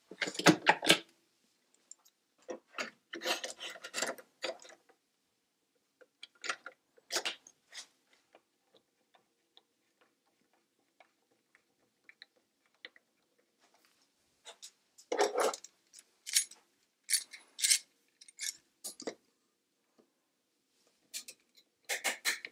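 Metal clamps and jig parts clicking, clattering and knocking against a wooden block and the drill press table as the workpiece is re-clamped. The sounds come in scattered groups with pauses between, the loudest right at the start; no motor runs.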